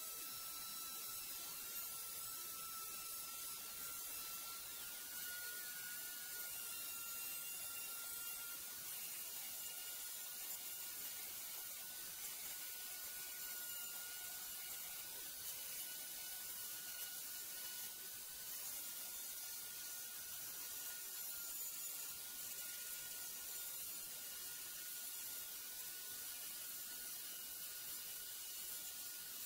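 Rotary tool on a flexible shaft running at high speed, a steady high whine that wavers slightly in pitch, as its small bit cleans up the edges of router-cut lettering in a wooden board.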